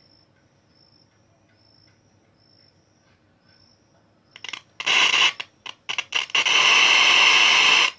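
Radio static hiss from a car stereo's channel 3 output, played through a test loudspeaker. The hiss cuts in and out several times from about four seconds in, then holds loud and steady and cuts off at the end.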